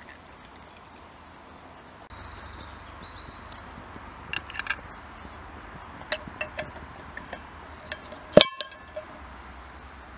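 Metal camp cookware clinking and knocking as it is handled: a run of sharp clinks, some with a short ring, the loudest about eight seconds in.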